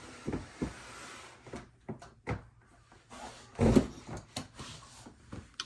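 Knocks and thumps from a snake enclosure being handled, with a scraping rustle over the first two seconds and the loudest thump a little past three and a half seconds in.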